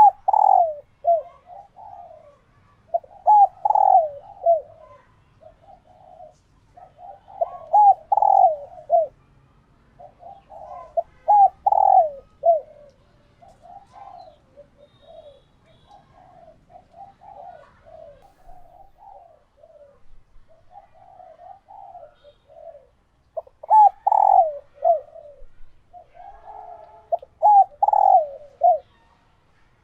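Hen spotted doves cooing in repeated short phrases of several notes each, with louder phrases every few seconds and quieter cooing in between. These are the calls of hens in laying condition.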